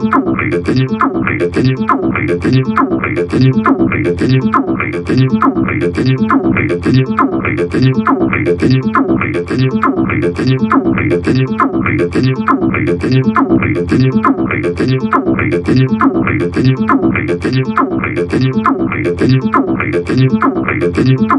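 TB-303-style acid synth playing three-note chords in a steady repeating pattern of short notes, each chord starting bright and quickly turning dull as its filter closes.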